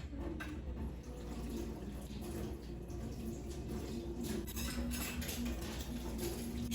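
Dishes being washed at a kitchen sink: water splashing, with dishes and cutlery clinking in short knocks.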